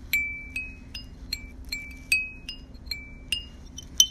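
The metal cooling fins on an air-cooled engine's cylinder being flicked one after another with a finger, each fin giving a sharp tick and a short bell-like ring. About three strikes a second, each fin at a slightly different pitch, the loudest near the end.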